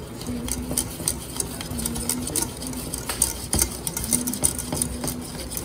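Wire whisk beating choux paste in a stainless steel saucepan, a quick run of clicks and scrapes of the wires against the pan. The flour is being worked rapidly into the hot liquid so it does not form lumps.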